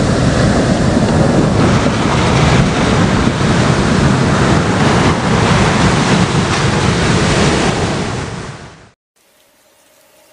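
Ocean surf: a loud, steady wash of breaking waves that fades out about nine seconds in.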